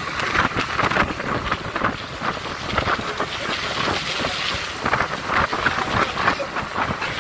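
Steady rushing wind and vehicle noise heard from inside a moving vehicle, with dense crackling on the microphone.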